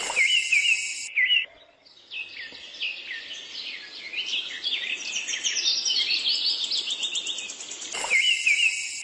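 Songbirds singing. One bird repeats a short whistled phrase for about a second and a half, then many small birds chirp together, and the first bird's phrase comes back near the end.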